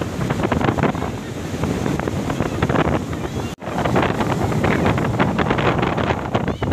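Strong wind buffeting the microphone in uneven gusts. The sound drops out for an instant about three and a half seconds in.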